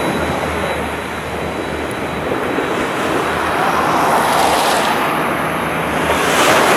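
Twin-turboprop Dash 8's engines and propellers running as it rolls down the runway, heard through a steady rush of wind and surf, with a faint high whine early on. The sound swells somewhat in the second half.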